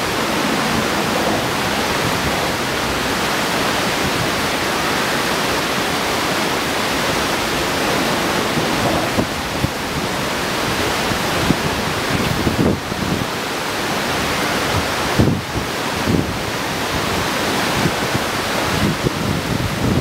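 Steady rush of creek water running over rapids, with a few brief low thumps on the microphone past the middle.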